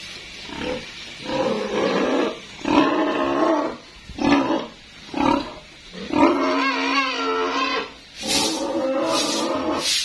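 Pigs squealing in a series of loud, wavering bursts separated by short gaps.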